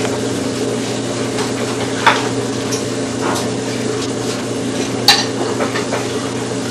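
Dishes being washed by hand at a kitchen sink: dishes clink against each other, most sharply about two seconds in and again about five seconds in, over a steady hum.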